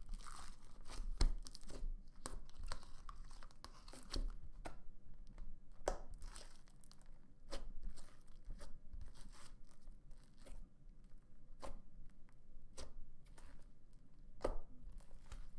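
White cloud slime being stretched and squished by hand, with soft tearing and crackling and scattered sharp clicks.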